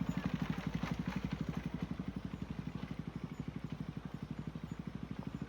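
Motorcycle engine idling with an even, rapid low thump, slowly getting quieter.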